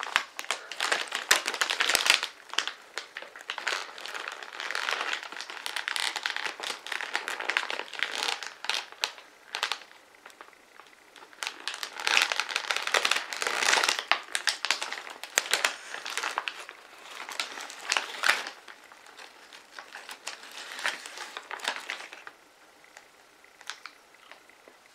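A large foil chip bag crinkling as it is handled and a hand works down inside it, in irregular bursts of crackling rustle. It dies down to faint rustles near the end.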